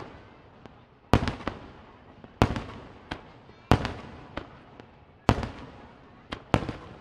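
Aerial fireworks shells bursting in a steady barrage: a loud bang about every second and a quarter, each fading away over about a second, with smaller pops in between.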